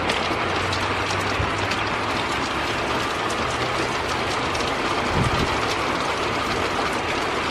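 Heavy rain falling steadily: a dense, even hiss with many small drop ticks throughout, and a faint low hum underneath.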